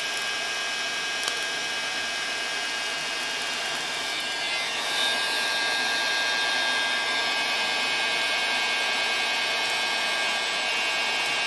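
A 1,500-watt Mastercraft heat gun running steadily, its fan blowing 500 °C air onto a raw steak, with a steady whine over the rush of air. About four and a half seconds in it gets louder and hissier as the nozzle is brought closer to the meat.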